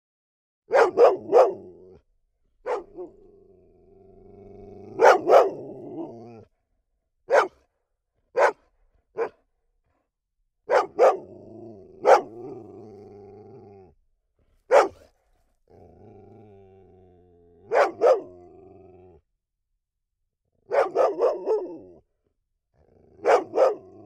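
A dog barking in short, sharp barks, some single and some in quick runs of two to four. Between the barks come longer stretches of low growling.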